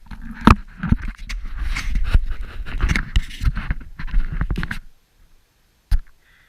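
Irregular scraping with many sharp knocks and clicks, cut off abruptly about five seconds in, then one sharp click.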